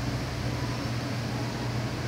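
Steady rush of moving air with a low, even hum, from a store display of ceiling fans running.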